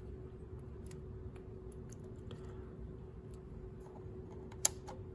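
Faint clicks and rustles of alligator-clip test leads and a digital multimeter being handled, with one sharper click near the end, over a faint steady hum.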